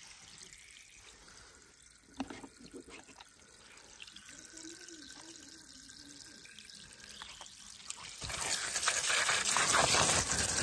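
Faint handling of plastic toy cars with a few small clicks, then, about eight seconds in, a jet of water starts spraying and splashing over a plastic toy monster truck, a loud steady hiss.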